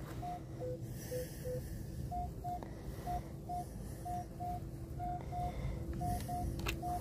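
Minelab Equinox 600 metal detector giving short beeps in pairs as the coil sweeps back and forth over a target. A few lower beeps come in the first second and a half, then mostly high tones about once a second: a strong high-tone 'screamer' signal reading 20 to 25, which turns out to come from a piece of aluminum.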